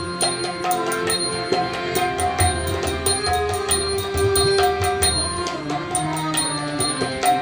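Tabla strokes accompanying a harmonium's held chords, with a woman singing a slow melodic line over them.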